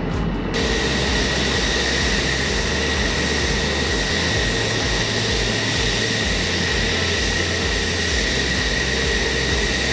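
F-15EX Eagle II jet fighters taxiing, their twin General Electric F110 turbofans giving a steady jet rush with a high-pitched turbine whine. The sound gets suddenly louder and brighter about half a second in.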